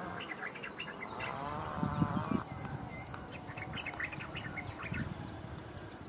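Bird chirping in rapid series of short high notes, in two bursts, the second starting about halfway through. About a second in, a longer wavering, lower call joins for about a second and a half.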